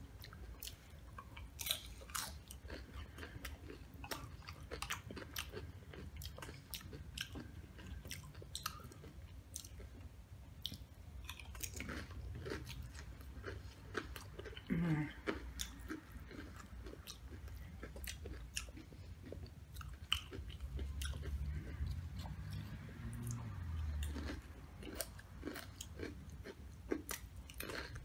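Close-miked chewing and crunching of Doritos tortilla-chip nachos loaded with toppings, with sharp crunches throughout. A brief low hum comes about halfway through.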